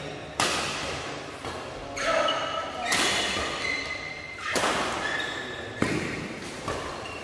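Badminton rackets striking a shuttlecock in a fast doubles rally: sharp smacks every second or so that ring in the hall. Sneakers squeak on the court mat between the hits.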